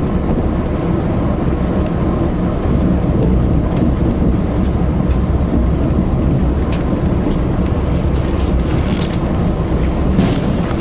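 Cabin noise inside a moving passenger train: a steady low rumble of wheels and running gear on the rails. Faint clicks come in its second half as the train runs into a station.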